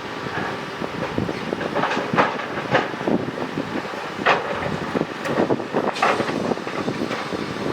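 Excavator working: a steady machine noise with irregular metallic clanks and scrapes every second or so.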